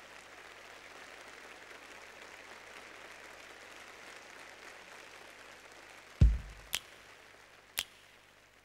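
Faint audience applause in a large arena, slowly dying away. About six seconds in, a loud bass thump and then two sharp clicks: the first beats of a song's electronic intro.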